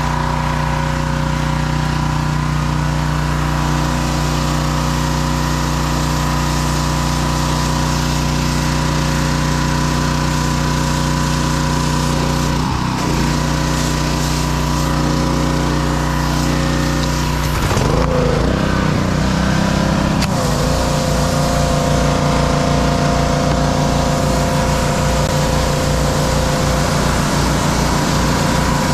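Gas pressure washer's small Honda engine running steadily. About two-thirds of the way through the sound shifts with a brief pitch glide, and from then on it carries a fast, even pulsing beat.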